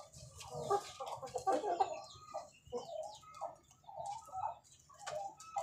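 Chickens clucking: a run of short calls, one after another.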